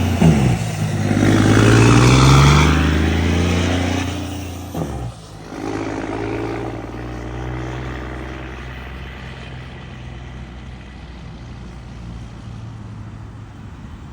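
Volvo FH truck's diesel engine revving through an aftermarket exhaust, its pitch rising and falling, then dropping back about five seconds in to a steady idle rumble that slowly fades.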